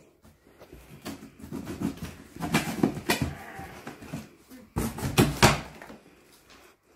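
Cardboard shipping box being pulled open and handled: scattered knocks and scraping rustles of the cardboard flaps, loudest about five seconds in.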